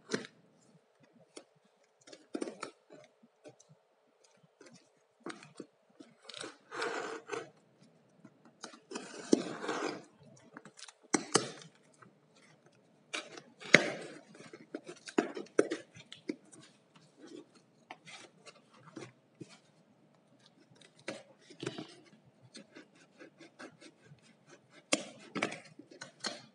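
A taped cardboard shipping box being opened by hand. A small blade slits the packing tape, the tape is pulled away, and the cardboard flaps scrape and crackle, in irregular bursts with short pauses between them.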